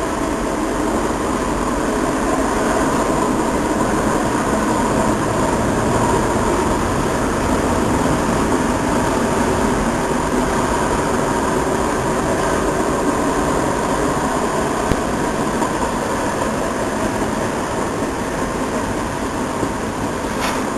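Long Union Pacific intermodal freight train passing, its cars' steel wheels running steadily on the rails.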